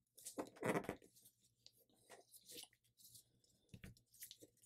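Thin paper being folded and creased by hand: rustling and crinkling, loudest in a burst about half a second in, then light scattered crackles.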